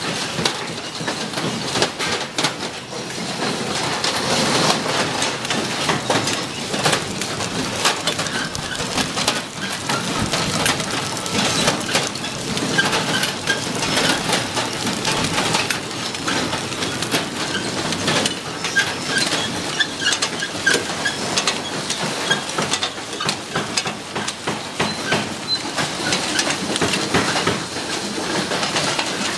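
Clatter of a hinge packing line: a packing machine running while steel concealed cabinet hinges clink and rattle as they are handled, a dense stream of clicks and knocks over a steady rush.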